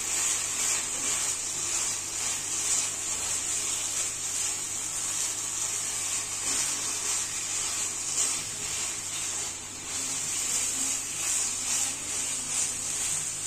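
Silicone spatula stirring and scraping a thick palm-pulp and milk-powder mixture around a nonstick frying pan, in repeated soft strokes over a steady faint hiss of the mixture cooking.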